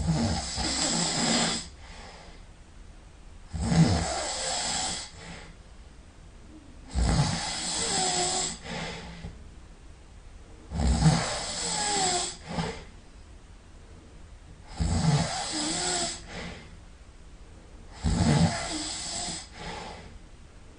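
A sleeping person snoring loudly: six heavy snores about every three and a half seconds, each lasting a second or two, with quiet gaps between them.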